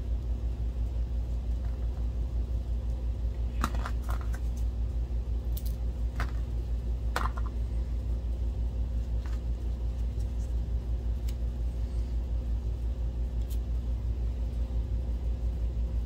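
A steady low rumbling hum with a fast pulsing beat, with a handful of short clicks and rustles scattered through it as tape is handled.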